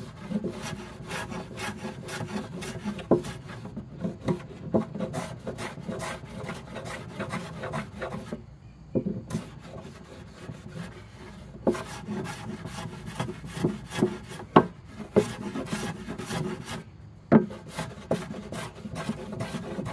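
Stanley No. 5 jack plane with a freshly sharpened iron cutting a board in repeated strokes, steel blade shaving wood, with a short break a little before halfway.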